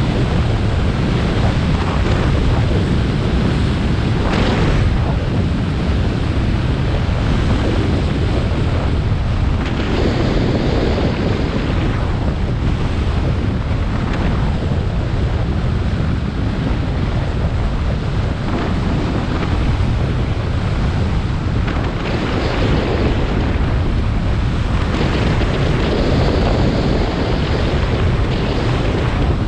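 Wind rushing over a GoPro Hero 7 Black's microphone while riding a snowboard at speed, a steady low rumble, with the hiss of the board sliding and scraping over snow swelling up several times.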